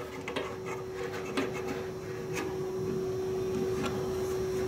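Light clicks and taps of a bent aluminum strip being handled and test-fitted against a microwave oven's metal chassis, over a steady hum.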